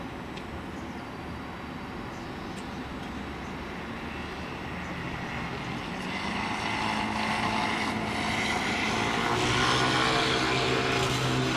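Alstom Citadis 402 tram approaching, its electric traction drive giving a whine of several steady tones that grows louder over the second half. Low street traffic noise before it.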